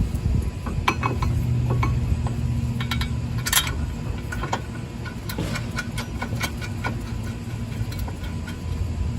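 Scattered metallic clicks and clinks of hand tools and brake parts being handled during reassembly, over a steady low rumble.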